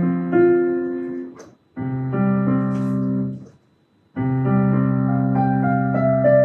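Piano chords played in three held blocks, each stopping briefly before the next begins, with short breaks about one and a half and three and a half seconds in.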